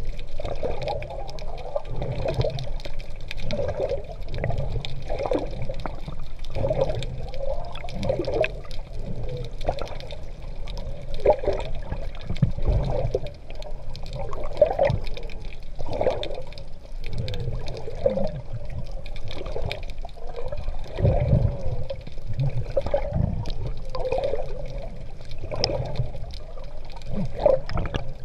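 Seawater sloshing and splashing around a swimmer in open-water strokes, in repeated irregular surges, muffled as heard by a GoPro in its waterproof housing.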